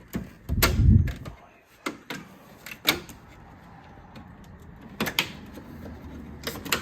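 Plastic clicks and knocks as a car's front grille is pushed in and snapped into place, with a heavy thump about a second in and several sharper knocks after.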